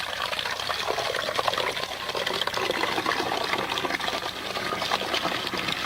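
Water pouring steadily into a bottle as it is filled.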